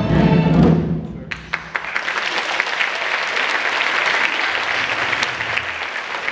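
A string-and-drum ensemble's closing chord ends about a second in, and audience applause follows and continues.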